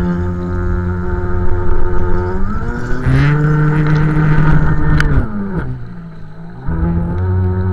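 Electric motor of a 6S LiPo RC speedboat whining under throttle. Its pitch glides up about two and a half seconds in, holds high, falls away a little after five seconds, dips briefly and climbs again near the end.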